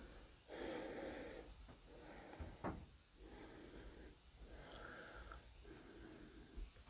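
Quiet breathing close to the microphone, a breath about every second to second and a half. One sharp click about halfway through as the glass-fronted wooden cabinet is handled.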